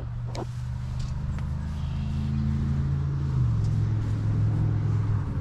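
A motor vehicle's engine running steadily, its low note stepping up in pitch about three seconds in and growing a little louder.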